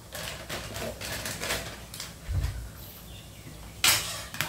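Kitchen dishes and cutlery being handled: scattered clinks and knocks, a dull thud about halfway through, and a sharp clatter near the end.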